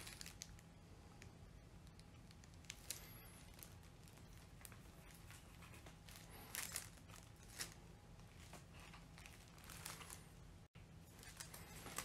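Near silence: faint, scattered rustles and small clicks of hands handling a balsa wing rib and frame on a plastic sheet laid over the plans, over a low steady hum.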